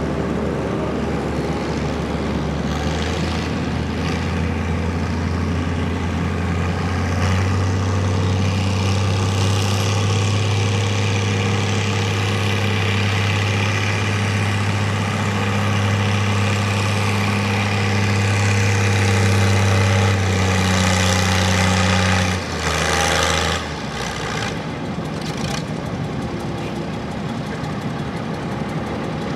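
Antique farm tractor engine running hard under load, pulling a weight-transfer sled with a steady, even note. About 22 seconds in the throttle is cut and the engine falls back to a quieter idle.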